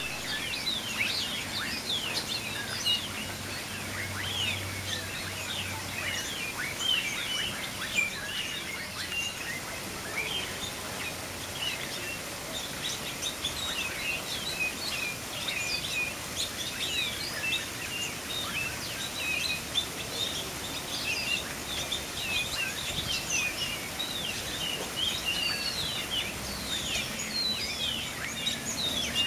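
Many birds chirping and calling without a break, a dense overlapping chorus of short, high chirps and whistles.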